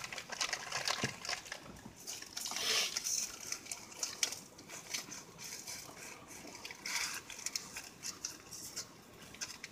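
Quiet eating sounds: scattered small clicks, crinkles and wet mouth noises as an ice cream sandwich is bitten from its plastic wrapper and an ice pop is sucked on.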